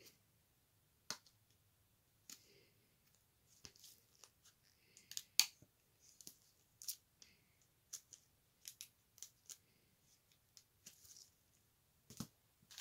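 Baseball trading cards being handled and shuffled in gloved hands: faint, scattered clicks and soft swishes as the cards snap and slide against each other.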